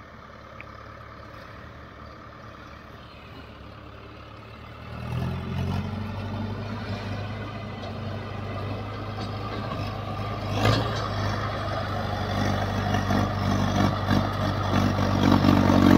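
Mahindra Arjun Ultra tractor's diesel engine pulling a trolley heavily loaded with sugarcane. It is faint at first, grows louder and fuller from about five seconds in as the tractor comes closer, and keeps rising, with a brief sharp peak about ten seconds in.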